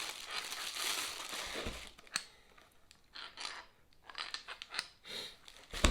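Plastic and paper packaging crinkling and rustling as tools are unpacked by hand, then scattered light clicks and short rustles, with a dull thump near the end.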